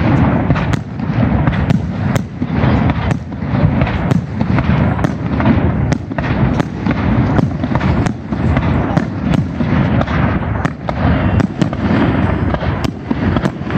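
Aerial fireworks shells bursting overhead: a rapid, irregular string of bangs over a continuous low rumble.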